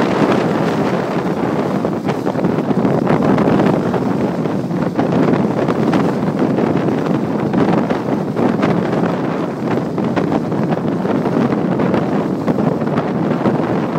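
Steady wind noise buffeting the microphone over the rush of water from a sailboat's wake.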